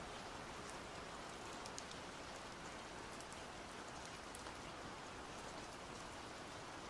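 Faint steady rain: an even hiss with scattered ticks of single drops.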